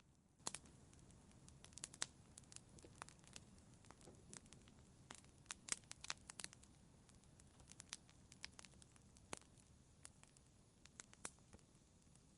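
Wood fire crackling quietly, with irregular sharp pops and snaps over a soft low hiss, starting about half a second in.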